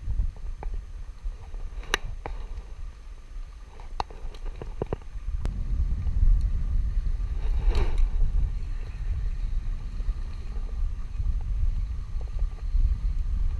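Wind buffeting the microphone as a gusting low rumble that grows stronger about halfway through, with a few sharp clicks and taps.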